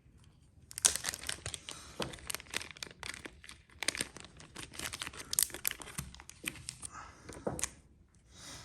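Packaging crinkling and rustling as it is handled, with many quick irregular crackles from about a second in until near the end.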